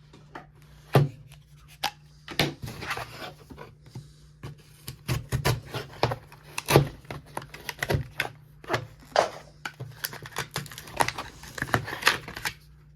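Hands opening the packaging of a CRKT pocket knife: irregular clicks, scrapes and rustling of cardboard and plastic, over a faint low hum.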